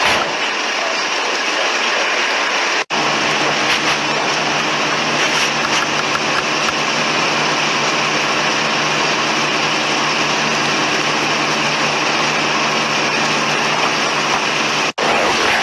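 A steady engine hum under loud, even outdoor noise, broken by a brief cut about three seconds in.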